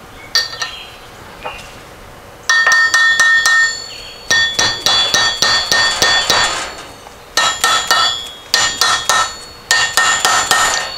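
Hammer tapping on a socket on the nose of a Porsche 912 crankshaft, driving the distributor drive gear down the shaft. The taps come in quick runs of light, ringing metallic strikes, several a second, with short pauses between runs; they start about two and a half seconds in.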